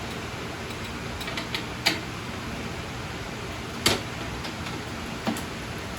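A PC case being handled while its tempered-glass side panel comes off: three short sharp clicks or knocks, about two, four and five seconds in, over a steady hiss.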